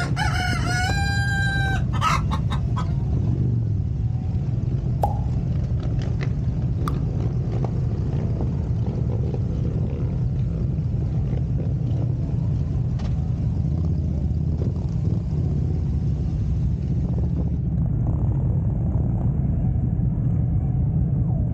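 A rooster crows once, a long call over about the first two seconds, over the steady low rumble of a Harley-Davidson Road Glide's V-twin engine running.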